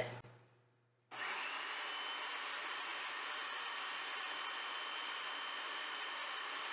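Electric food chopper switched on about a second in, its motor running steadily with a thin high whine, blending eggs and sugar while cooking oil is added little by little.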